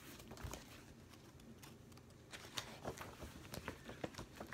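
Faint handling of a picture book: scattered light clicks and soft rustles, coming more often from about two seconds in.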